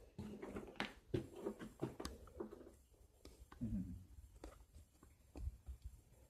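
Faint, scattered footsteps and small clicks and knocks of debris underfoot, irregular and sparse.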